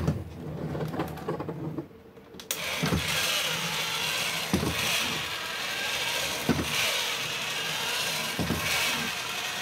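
Battery-powered motor and plastic gears of a vintage Masters of the Universe Spydor walking toy, whirring steadily as it walks, with a sharp knock about every two seconds. A moment of hands handling the toy comes first, and the motor whir sets in about two and a half seconds in.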